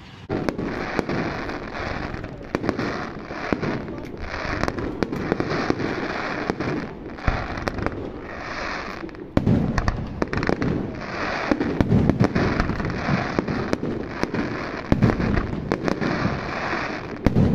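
Fireworks display: a dense, continuous run of bangs and crackling, with heavier booms now and then in the second half.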